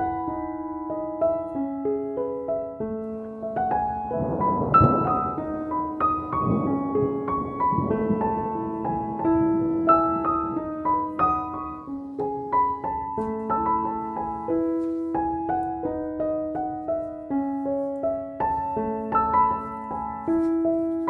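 Background piano music: a gentle melody of held notes played one after another, with a few short noisy sounds under it about five to eight seconds in.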